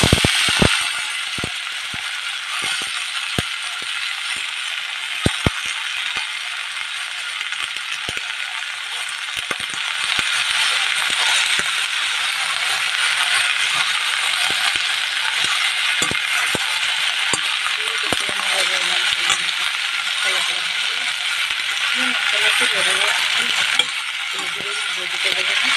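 Cluster beans frying in hot oil in a stainless steel kadai: a steady sizzle that gets louder about ten seconds in, with scattered clicks and taps of the spatula against the metal pan.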